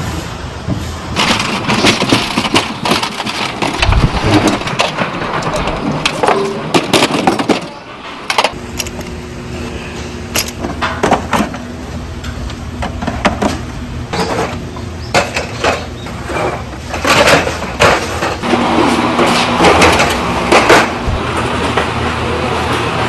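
A straw broom scraping and sweeping leaves over asphalt with traffic passing, then, about 8 seconds in, glass soju bottles clinking and knocking in plastic crates over a steady low hum.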